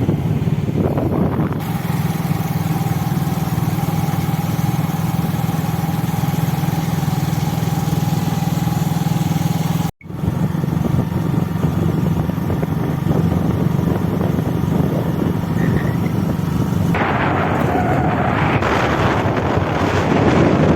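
Steady engine and road drone of a moving vehicle, heard from on board. The sound drops out for an instant about halfway through, and wind buffets the microphone for the last few seconds.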